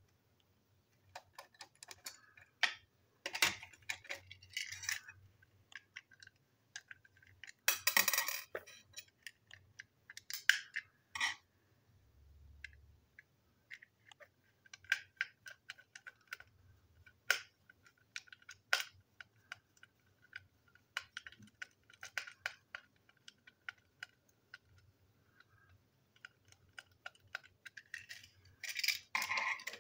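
A small plastic toy train truck and its parts being handled and taken apart with a small screwdriver: scattered clicks, taps and light clatters of plastic and small metal pieces, with a few louder clatters.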